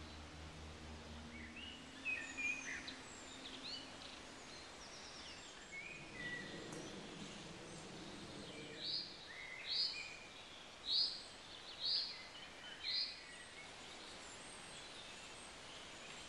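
Woodland birdsong: several small birds calling and singing, with one bird giving a run of five loud, clear notes about one a second in the middle. A low steady hum fades out in the first two seconds.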